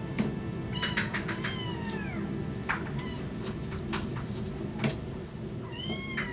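Young kittens mewing with thin, high-pitched mews that slide downward in pitch: a cluster about a second in and another near the end, with a few short clicks between them.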